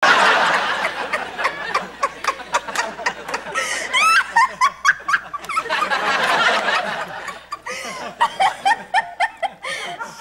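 A woman laughing hard in long, rhythmic fits, with a high squeal rising in pitch about four seconds in. An audience laughs along at the start and again around six seconds in.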